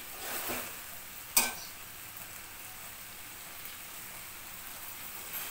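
Snakehead fish and hyacinth bean seeds sizzling steadily in hot spiced oil in an aluminium pan, with a single sharp clack of the metal spatula against the pan about a second and a half in.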